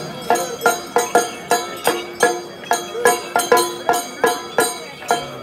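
Background music with a steady beat of sharp percussion strikes, about four a second, over sustained tones.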